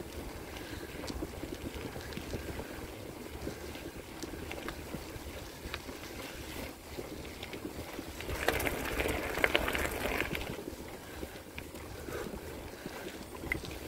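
Bicycle tyres rolling over a gravel forest road: a steady crunching rumble with small ticks and rattles, growing louder and rougher for about two seconds past the middle.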